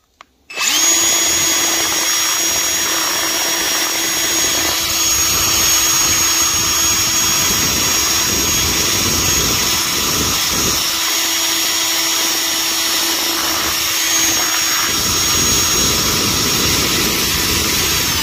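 Cordless drill spinning a wire brush wheel against the threads of a brake caliper bracket bolt clamped in a vise, scrubbing the threads clean. It is a steady motor whine with the rasp of the wire bristles on the metal, starting about half a second in and running on without a break.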